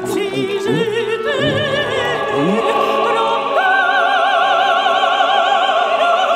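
Operatic singing over orchestral music. About three and a half seconds in, a singer takes a high note and holds it with a wide vibrato.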